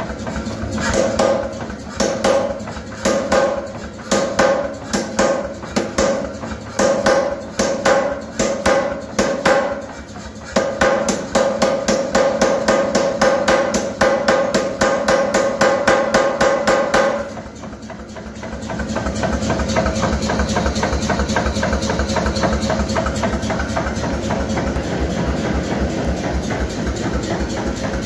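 Power hammer striking a hot steel bar held in an acorn swage: short bursts of rapid blows, then a continuous run of fast blows lasting about seven seconds. The blows then stop and the machine keeps running with a steady low chugging.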